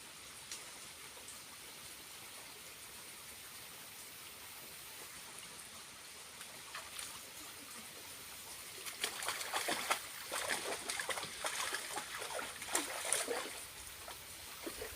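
Small waterfall trickling steadily. From about nine seconds in there is a few seconds of louder, irregular splashing in the water.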